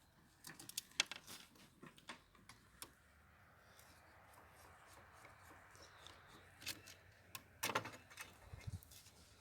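Faint small metallic clicks and scraping as the screws holding a submersible well pump's intake filter screen are undone, with a soft steady rasp in the middle.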